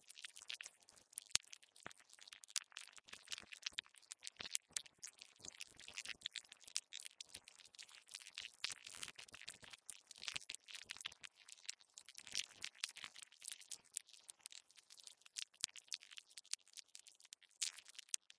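Earthworm sound effect: a dense, irregular crackling and clicking made of many sharp little ticks, with no steady tone.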